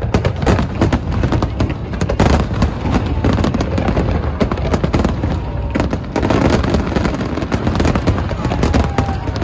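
Fireworks bursting in rapid succession: dense, overlapping booms and crackles with a continuous low rumble and echo, one burst close on another.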